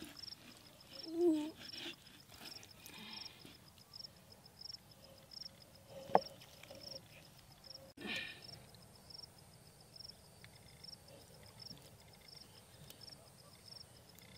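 Quiet outdoor ambience with an insect chirping steadily, about two chirps a second. A short wavering call sounds about a second in, and a single sharp clink about six seconds in.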